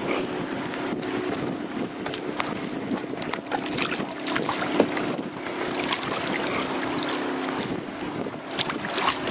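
Wind buffeting the microphone over water slapping and splashing beside a boat hull as a hooked redfish is brought up alongside, with scattered sharp splashes, over a steady motor hum.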